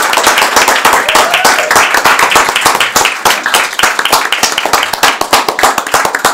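A small group of people applauding, with many hands clapping in a dense, steady patter.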